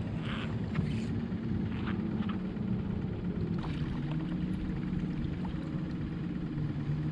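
Steady low engine hum holding an even pitch, with a few faint light ticks in the first few seconds.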